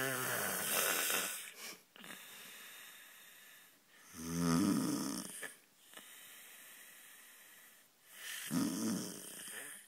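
A man snoring loudly in his sleep, three long rattling snores about four seconds apart.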